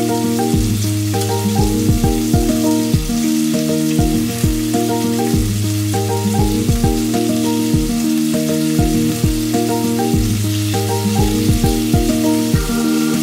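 Background music with a steady beat and a looping melody, over the sizzle of pork belly and lettuce frying in a pan.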